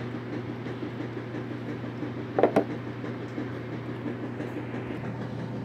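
A steady low electrical-sounding hum, with one short, sharp sound about two and a half seconds in.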